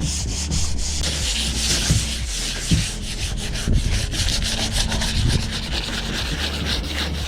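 Sanding the fibreglass hull of a boat: a steady rasping hiss that pulses several times a second.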